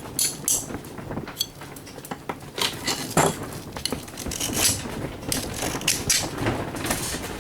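Parts of a dismantled electric can opener being handled: irregular clicks, knocks and clatter of small metal and plastic pieces, busier in the second half.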